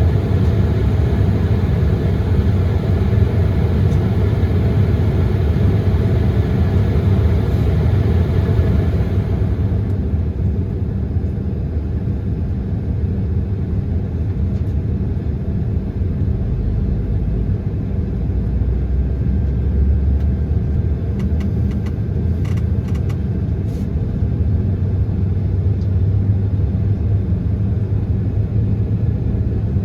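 Cabin noise inside an Embraer 170 airliner: a steady low rumble from its GE CF34 jet engines and airframe, with a higher hiss that drops away about a third of the way through.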